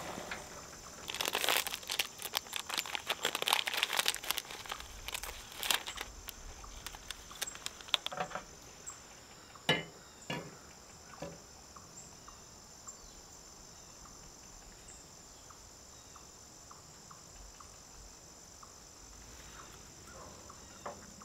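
Steady high chirring of insects throughout. Over it, a few seconds of crinkling and rustling like a packet being handled and torn open, then a few separate knocks and clinks of a metal kettle and an enamel mug on a camp stove table.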